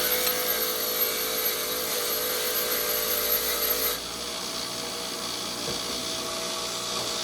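Electric valve-grinding machine running steadily with a rubbing, grinding sound as a pitted Pontiac 400 valve is reground. About four seconds in, its steady whine stops and the sound drops a little but keeps on.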